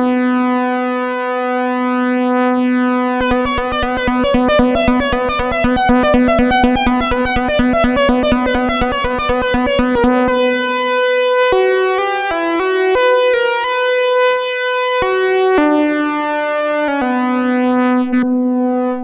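Jasper Wasp clone, a DIY copy of the EDP Wasp analog monosynth, making its first sounds. It starts on a held low note, pulses rapidly with a shifting tone for several seconds, then plays short notes stepping up and down and settles on a held note near the end.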